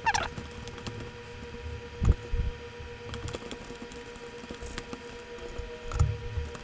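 Raw fish pieces being pressed and turned by hand in dry fish-fry breading in a plastic container: soft squishing and patting. Two dull thumps, about two seconds in and near the end, sound over a steady hum.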